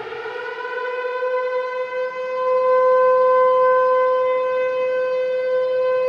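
Hockey arena goal horn, the New York Islanders' 1994 playoff horn, blowing one long, steady note. It has a synthesized sound, slides up slightly in pitch as it starts, and gets louder about halfway through.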